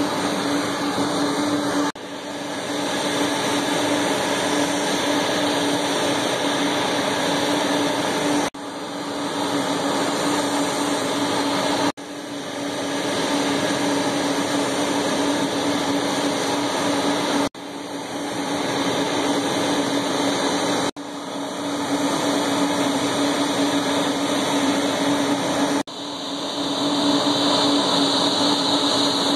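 Bombardier CRJ regional jet's twin rear-mounted turbofan engines running steadily while taxiing: a constant whine over a broad rush. The level briefly drops and recovers several times.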